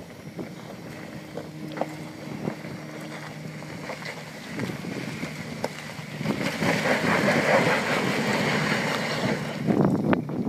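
Ford Explorer Sport Trac's V6 engine pulling the truck up a steep dirt climb, a steady low note at first that grows much louder from about six seconds in as the truck nears, mixed with tyre and wind noise on the microphone.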